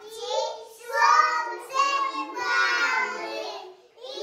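A group of young children singing a song together in sung phrases with short breaths between them.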